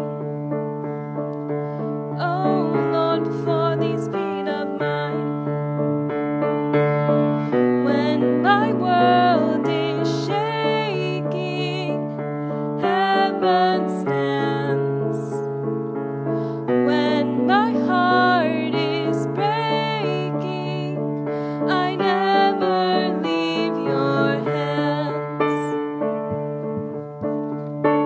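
A female soloist sings with vibrato, accompanied by a grand piano.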